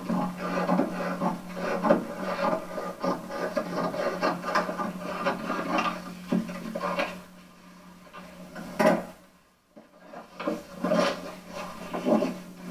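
Scissors cutting through a large sheet of paper: a quick, irregular run of crisp snips and paper rustle that breaks off about seven seconds in, followed by a few separate rustles as the paper is handled. A steady low hum runs underneath.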